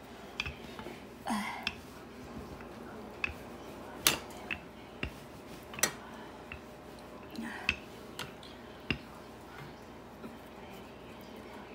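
Wooden rolling pin rolling out dumpling dough on a floured surface, with about ten irregular light clicks and knocks as the pin is worked back and forth.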